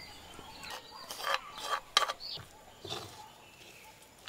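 Wooden spoon stirring and scraping a crumbly egg mixture in a clay pot, in a few short strokes about one to two seconds in and a sharp knock at about two seconds.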